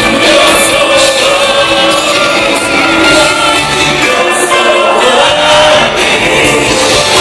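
Live Christian band performing on stage: several singers over a full band, the music loud and continuous.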